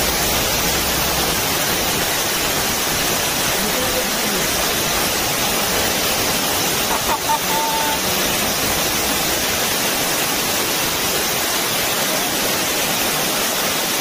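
Waterfall: a loud, steady rush of falling water.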